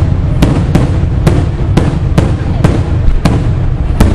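Fireworks display: aerial shells bursting in quick succession, about two sharp bangs a second over a continuous low rumble of detonations.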